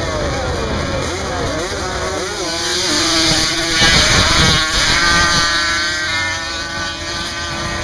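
ATV (quad) engines revving at full throttle in a sand hill drag race. One quad passes close by and is loudest about four seconds in, then its engine holds a steadier pitch as it climbs away.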